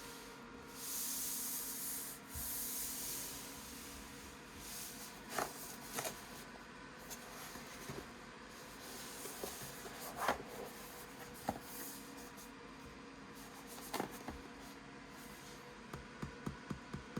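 Cardboard packaging being handled and opened: two sliding rubs, then scattered taps and knocks, with a quick run of clicks near the end.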